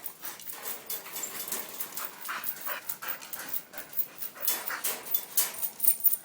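A dog panting: a quick, uneven run of short breaths that grows louder near the end.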